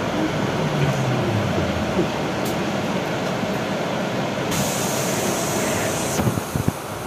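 Inside a BKM 32100D trolleybus as it slows to a halt, a steady running rumble. About four and a half seconds in, a loud hiss starts and cuts off after about a second and a half, followed by a few knocks.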